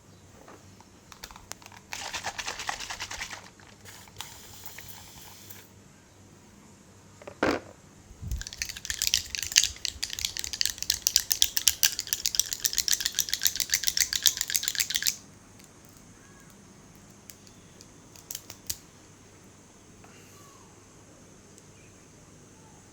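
Head massage sounds: fingers rubbing and scratching through hair and scalp, close to the microphone. A short scratchy rub about two seconds in, a single sharp tap in the middle, then several seconds of fast, crackly scratching that stops suddenly.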